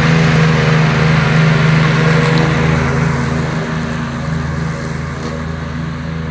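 Greenfield ride-on lawn mower's engine running steadily while mowing, growing fainter from about halfway through as the mower drives away.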